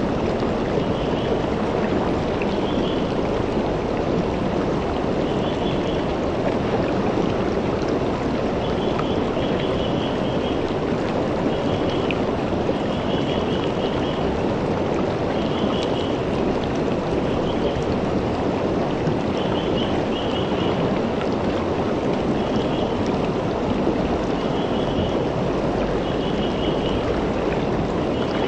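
Shallow river flowing steadily over and around rocks, a continuous rush of water. A short, high chirp repeats every second or two.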